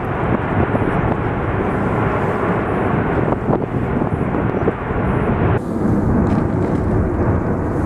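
Steady, loud rushing noise of the Cumbre Vieja eruption on La Palma, its vents fountaining lava and jetting gas and ash. About two-thirds of the way in, the sound turns duller, losing its higher part.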